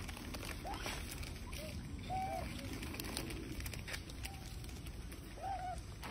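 Macaques giving a few short, arched coo calls, the clearest about two seconds in and again near the end, over a low steady background rumble.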